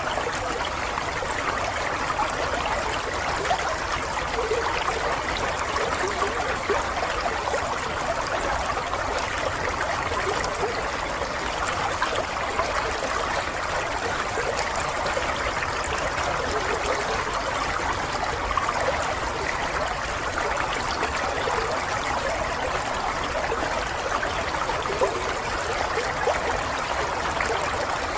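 Water flowing and trickling steadily, like a small stream running over stones, with a continuous babble of small bubbling splashes.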